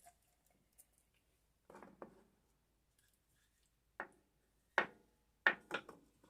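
Scattered short taps and clicks from hands handling whole snapper in a pan while rubbing jerk seasoning into it: a pair about two seconds in, then a quicker run of taps near the end.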